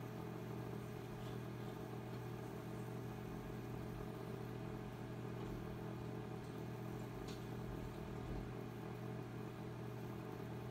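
A steady low hum with no change in level, with one faint click about seven seconds in.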